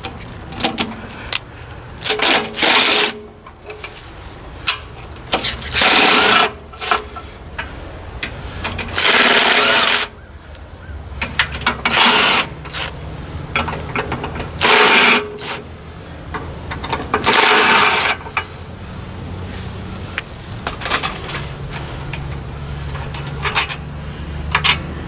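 Cordless impact driver run in six short bursts of about a second each, backing out the crankcase side-cover bolts of a Predator small engine. A low steady hum runs underneath from about halfway through.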